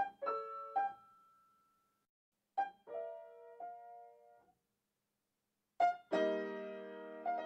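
Sparse solo piano music: a few short, quiet phrases of decaying notes separated by silences, then a louder sustained chord about six seconds in.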